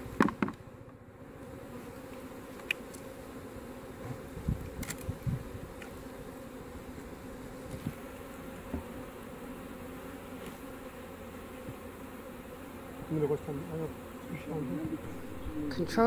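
Honey bees buzzing in a steady hum around an opened hive, with a few light knocks as the wooden hive parts and frames are handled.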